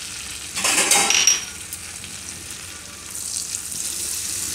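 Curry leaves dropped into hot butter and oil in a kadai: a loud burst of spattering about half a second in that lasts about a second, then the fat sizzling steadily.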